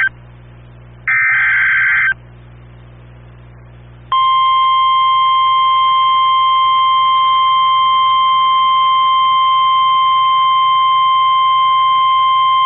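NOAA Weather Radio Emergency Alert System activation: the tail of one SAME digital header burst, then about a second in another one-second burst of data screech. About four seconds in, the loud, steady single-pitch warning alarm tone begins, signalling that a weather warning is about to be broadcast.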